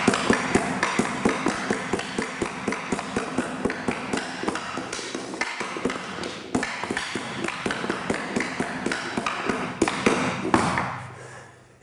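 A hockey stick blade rapidly tapping a stick-handling ball back and forth, about four sharp taps a second, dying away near the end.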